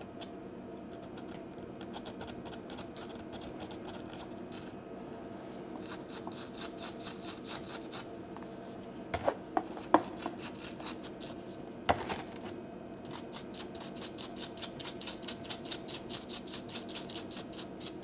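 Small bristle brush wet with thinner scrubbing a spark plug's threads and electrode end in quick back-and-forth strokes, loosening carbon deposits. A few sharp taps come around the middle.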